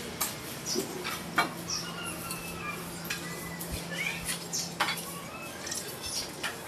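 Broom sweeping a dusty concrete floor in short, scratchy strokes, with birds chirping in short rising and falling calls. A steady low hum runs under it and stops about five seconds in.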